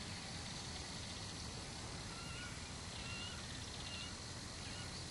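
Scattered short, squeaky bird calls, a few each second or two, over a steady low rumble and hiss.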